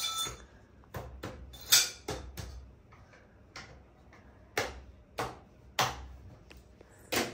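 Irregular clicks and knocks of hard parts, about a dozen, as metal rods and connectors of a shoe rack are handled and fitted together during assembly; the sharpest knock comes under two seconds in.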